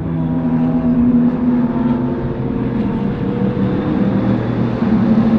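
A pack of GT3 race cars passing at speed at the race start, several racing engines sounding together in steady overlapping tones.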